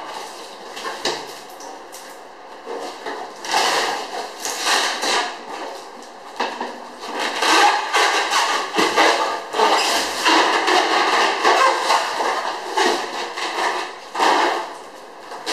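Handling noise: irregular rustling and scraping with light knocks, coming in uneven bursts.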